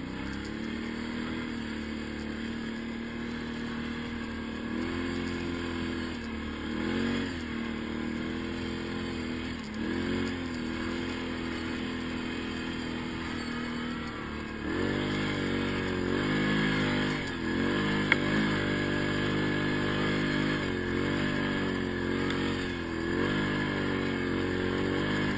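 Quad (ATV) engine running at low speed, its revs blipping up and down every few seconds with the throttle, and louder from about halfway through. A single sharp knock sounds about two-thirds of the way in.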